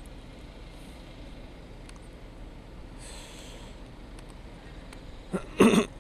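Faint steady outdoor background, then near the end two short, loud vocal sounds from a person close to the microphone, breathy and cough-like rather than words.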